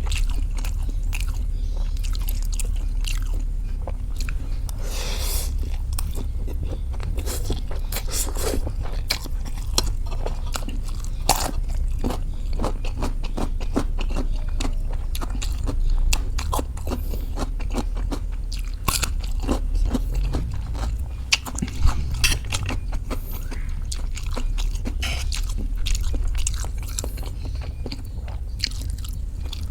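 A person chewing mouthfuls of fried noodles (mie goreng), with many short, irregular wet mouth clicks and smacks, over a steady low hum.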